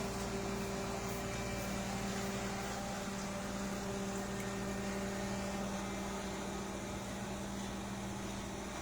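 Road roller's engine running steadily: a constant hum with a steady low tone that holds throughout.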